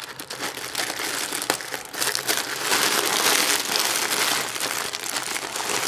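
Plastic postal mailer bag crinkling and crackling as it is pulled and torn open by hand, getting louder about two seconds in.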